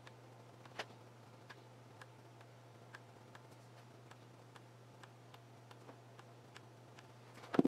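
Hot glue gun being worked: light clicks about twice a second, unevenly spaced, with a louder click about a second in, over a steady low hum. A heavier knock near the end.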